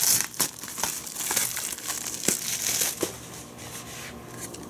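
Plastic shrink wrap being peeled and torn off a Blu-ray case, crinkling with many small crackles that die down after about three seconds into quieter handling of the case.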